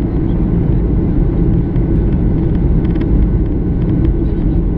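Steady low rumble of a Boeing 737-800 cabin in flight, engine and airflow noise heard from a window seat over the wing during descent, with its CFM56-7B turbofans running.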